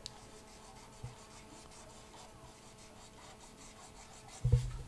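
Marker pen writing on a whiteboard: faint scratchy strokes as the letters are drawn, with a small click about a second in. A short low hum comes near the end.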